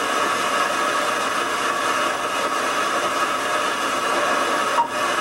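Steady hiss of analogue video static from an old tape recording, with a brief dropout near the end.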